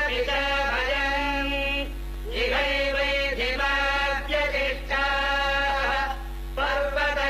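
Male devotional chanting, sung in long held phrases that slide into each pitch, with short breaks about two seconds in and again near the end. A steady low hum runs underneath.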